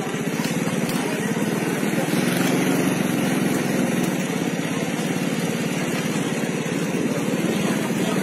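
A small motorcycle engine running steadily, with a fast even pulse.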